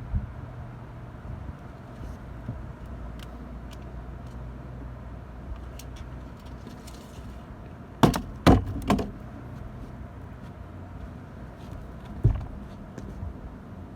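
A steady low hum with a few sharp knocks and clatters over it: three or four in quick succession about eight seconds in, and one more near twelve seconds, typical of handling gear and a fish by the microphone.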